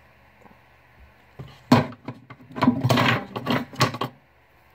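A quick series of knocks and rustles close to the microphone as things are handled right beside it, starting about a second and a half in and stopping about four seconds in.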